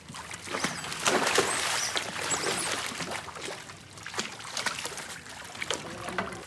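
Water splashing and sloshing as tethered otters swim and thrash in shallow river water beside a boat, in a run of irregular short splashes.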